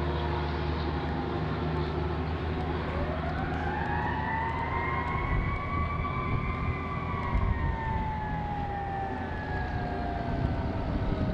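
Emergency vehicle siren on approaching fire-rescue apparatus: one long wail that begins a few seconds in, rises for about three seconds and then falls slowly, over a steady low engine and traffic rumble.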